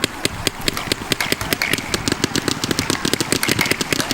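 Several mechanical paintball markers firing at once: a rapid, irregular string of sharp pops, many shots a second.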